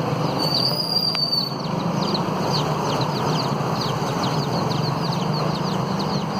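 Budgies calling: one held high whistle, then a run of quick, short, falling chirps, several a second. Under the birds is a steady low rumble, like traffic or an engine.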